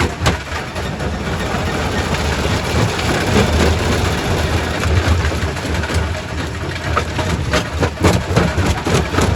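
Quarry primary rock crusher running: a steady heavy low rumble with scattered knocks and cracks of rock being broken, coming thicker near the end.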